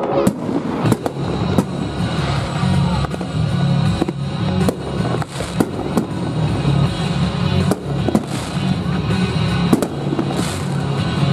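Aerial fireworks shells bursting one after another, a run of sharp bangs about once a second or faster, with music playing underneath.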